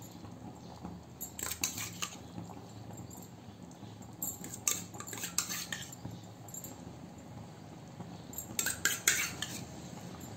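A metal spoon clinking and scraping against the pan in three short bouts: about a second and a half in, around four to five seconds, and near nine seconds. It is spooning fresh malai (milk cream) into a simmering paneer gravy, over a low steady background.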